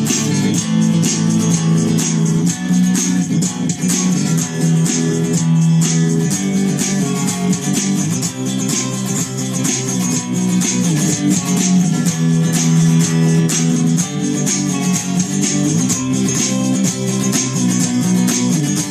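A band playing the instrumental guitar intro of a rock song: strummed guitar over bass in a steady beat, before the vocals start.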